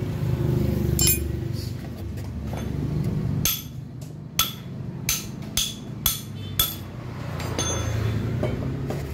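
A series of sharp metal knocks from hammering out the worn CVT-cover bearing of a Yamaha NMAX after it was welded to free it. There is one knock about a second in, then about six more, half a second to a second apart, over a low steady hum.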